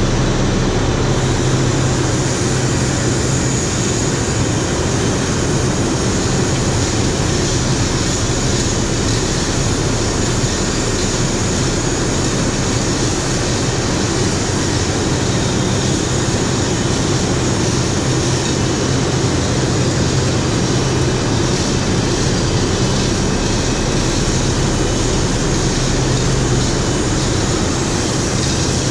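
Steady, loud mechanical drone with a constant low hum under an even hiss, unchanging throughout: industrial machinery running in the turbine hall during the crane lift.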